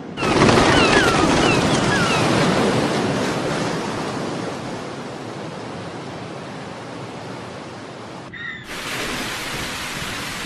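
Surf washing on a shore, with several short falling seabird cries in the first two seconds; the surf slowly fades. About eight seconds in it breaks off and gives way to steady rain.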